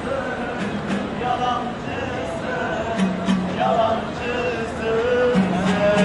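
Music with a singing voice playing in a crowded street, over a steady background of crowd chatter.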